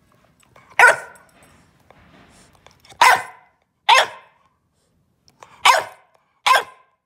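Bulldog puppy demand barking: five short, sharp barks, spaced irregularly, one or two at a time. It is barking in protest at being told not to bite the couch.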